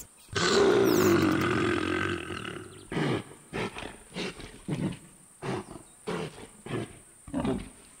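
A lion's roar, one long call that falls slowly in pitch, then a string of shorter, quieter sounds about twice a second.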